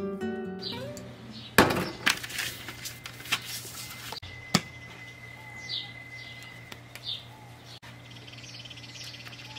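Outdoor ambience with birds chirping: several short high chirps, and a fast high trill near the end. A few sharp knocks and clinks sound in the first half.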